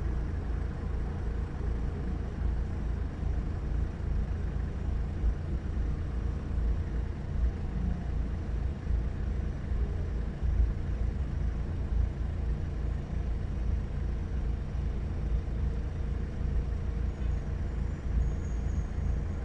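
Steady low rumble of motor vehicles heard from inside a stopped car, as a motorcade of SUVs, pickups and vans drives past.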